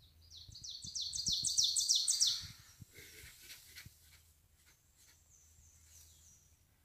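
A songbird singing: a fast run of high, down-slurred chirps that builds for about two seconds, then a fainter, high, thin trill near the end.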